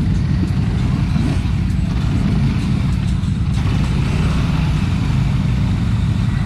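ATV engine running steadily under load, stuck in deep mud, with its mud tyres spinning and churning mud and water.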